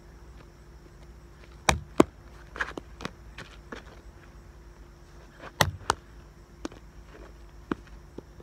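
A ball being kicked and bouncing on asphalt, with footsteps: sharp thuds coming in two close pairs, about two seconds in and again about four seconds later, among lighter knocks.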